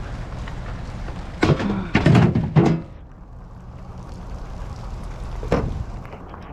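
Several loud thuds and knocks in quick succession over about a second and a half, then a single knock later on, over a steady low hum.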